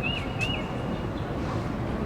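Steady low rumble of town traffic with a small bird chirping in a quick run of short hooked notes near the start.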